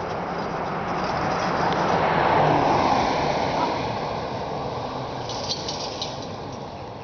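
A vehicle passing on the road: tyre and engine noise swells to a peak a little over two seconds in, then fades away.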